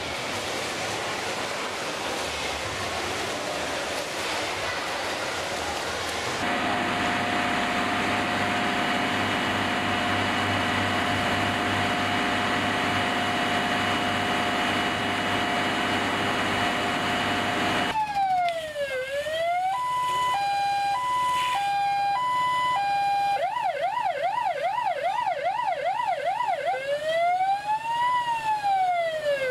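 Swimmers splashing in an echoing pool, then a steady tone over a rushing hiss, and from a little past the middle a fire engine's electronic siren cycling through modes: a slow wail, a two-tone hi-lo, a fast yelp, then the slow wail again.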